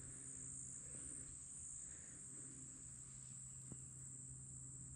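Faint, steady high-pitched chorus of insects trilling in the scrub, over a faint low hum.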